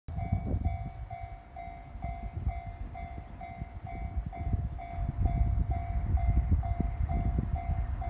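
Japanese railway level-crossing warning bell ringing its repeated electronic clang, about two strokes a second, sounding while the barriers are down for an approaching train. An uneven low rumble underneath grows louder toward the end.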